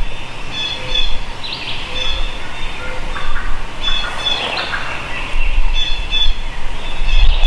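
Woodland birds calling, short high notes repeated in little groups every second or two, over a steady low rumble of noise.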